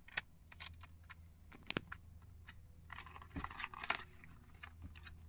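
A toddler handling and tearing a small cardboard box: faint scattered clicks and crinkles, with a short rustle of tearing about three to four seconds in. A steady low hum underneath.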